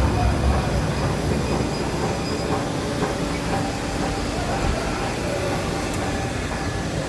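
Large industrial shredding system for textile waste running under load: a steady mechanical rumble with a few faint thin tones over it.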